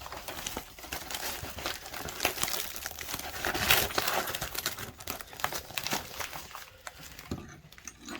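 Packing material crinkling and rustling as a parcel is unwrapped by hand: a dense run of small crackles, busiest about halfway through and dying down near the end.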